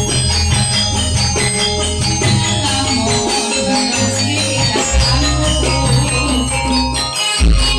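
A live campursari ensemble playing Javanese music for tayub dancing. It has a steady beat, a strong bass line and dense jingling percussion.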